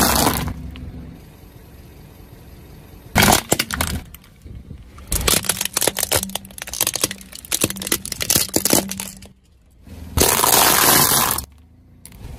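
Car tyre crushing things on asphalt: crunching that stops about half a second in, a short crack around three seconds, then a long run of sharp plastic cracks and snaps as it rolls over plastic toy cars, and another loud burst of crunching near the end.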